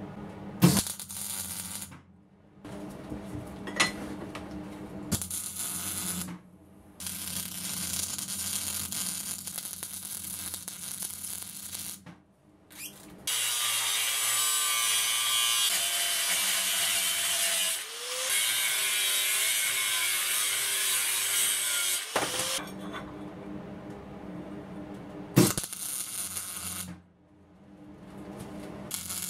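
A ratchet wrench clicking as a nut is tightened on a bolt, then an angle grinder running loud against steel for several seconds, its whine wavering as it bites, then quieter shop handling with a sharp knock.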